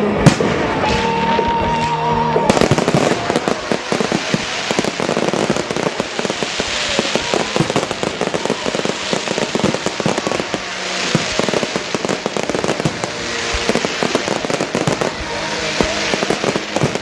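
Fireworks display: one sharp bang just after the start, then from about two and a half seconds in a dense, continuous crackle of many small bursts, with music playing underneath.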